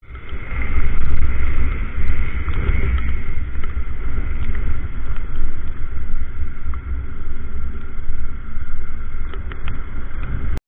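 Motorcycle ride heard through a helmet camera's microphone: heavy wind rumble over the running engine, steady throughout, then cutting off suddenly near the end.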